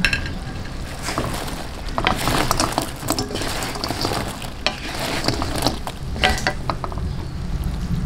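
Two wooden spatulas tossing fried banana rolls in a wok of bubbling brown-sugar syrup. There is irregular scraping and knocking of wood on the pan over a sizzle of the hot syrup.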